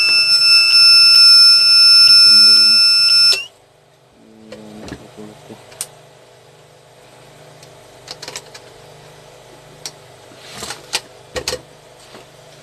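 A power inverter's fault-alarm buzzer sounds one loud, steady, high-pitched tone and cuts off suddenly about three and a half seconds in; it is the fault alarm of an inverter that gives no output. After that come scattered clicks and knocks as the metal case is handled.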